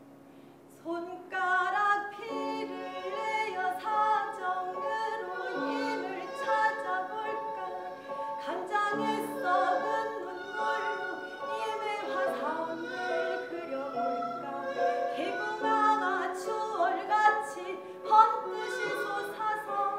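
Pansori singing: a woman's voice in long, bending held notes, accompanied by strokes on a buk barrel drum. The singing comes in about a second in.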